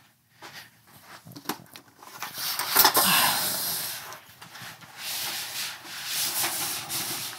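Roll-up banner stand being handled and its vinyl banner pulled up out of the base cassette: a few knocks, then a long, even rubbing, sliding hiss starting about two and a half seconds in.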